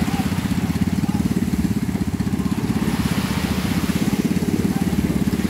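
A small boat engine on an outrigger banca idling, with a fast, even chugging.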